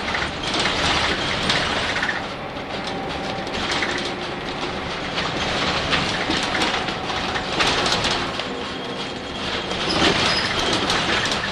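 Cabin noise of a Nissan Diesel UA city bus with a PU6 compressed-natural-gas engine running between stops: steady engine and road noise with frequent rattles from the body and fittings.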